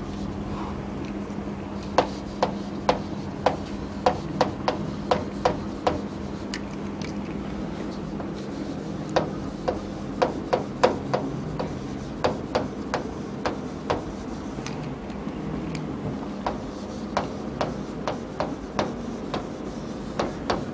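Chalk tapping and scratching on a chalkboard as words are handwritten: sharp clicks in three runs with short pauses between, over a low steady hum.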